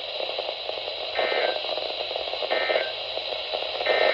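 Emergency Alert System end-of-message code: three short, identical two-tone data bursts about 1.3 seconds apart, over steady radio static.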